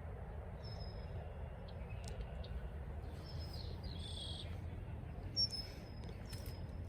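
Birds calling in short, high, thin chirps every second or two over a low steady outdoor rumble, with a single sharp tick about five and a half seconds in.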